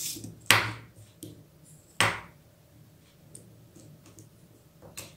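Plastic flip-lock clips and aluminium leg sections of a tripod being handled while a leg is extended: two sharp clacks about a second and a half apart, then a few faint taps.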